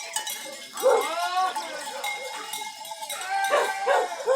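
Farm animal calls: a drawn-out pitched cry about a second in, then several more near the end.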